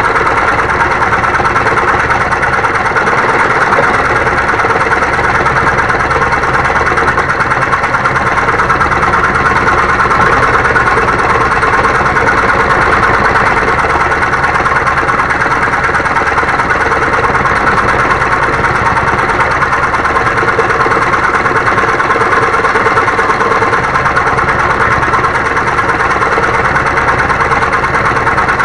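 Homemade electric scroll saw running steadily, its reciprocating blade cutting through wood.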